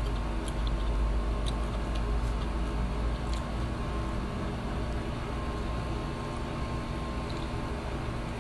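Steady low machine hum with a few faint steady tones, such as a fan or air conditioner running in a small room. Over it, a handful of faint clicks and smacks from eating by hand.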